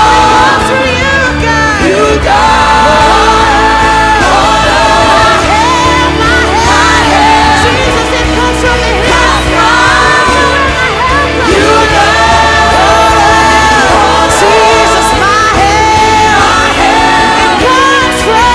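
Worship band playing a contemporary worship song, with a sung melody over steady bass and keys.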